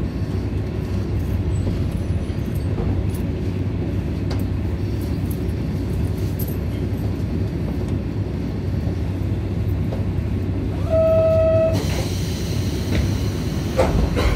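KiHa 47 diesel railcar standing at the platform, its engine idling with a steady low hum heard from inside the car. About eleven seconds in, a short single-pitched beep sounds. It is followed by a loud hiss of compressed air lasting about two seconds, with a knock near the end.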